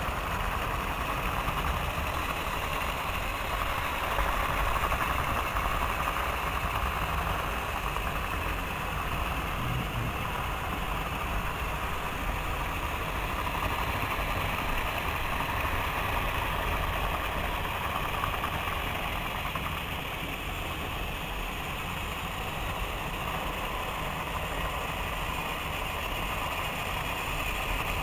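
Motorised toy trains running past on their track: a steady whirring and rolling from the engines and coaches that goes on without a break.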